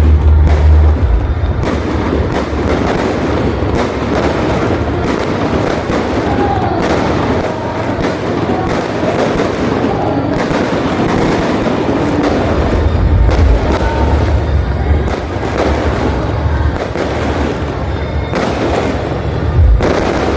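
Aerial fireworks bursting in a rapid series of sharp bangs, with deep booms about a second in and again around two-thirds of the way through. Music plays underneath.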